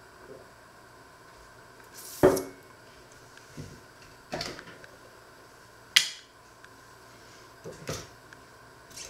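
Kitchen utensils and a jar being picked up and set down on a wooden worktop: about five separate knocks and clatters, the loudest about two and six seconds in.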